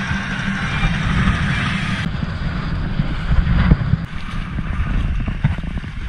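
Wind buffeting the camera microphone over the rush of water along a trimaran's hulls under sail. The sound changes abruptly about two seconds in.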